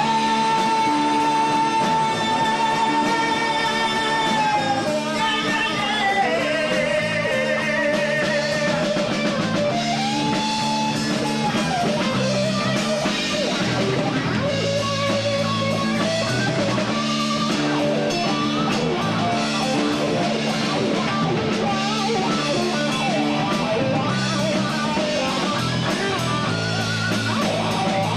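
Live rock band playing: electric guitar, bass guitar and drum kit. A lead line opens on a long held note with slight vibrato that slides down after about four seconds, over a steady bass and drum groove.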